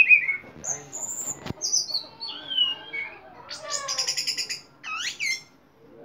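Orange-headed thrush singing a fast, varied song of whistled rising and falling glides and quick stuttering trills, sung in the crouched-down 'teler jatoh' display. A single sharp click comes about one and a half seconds in.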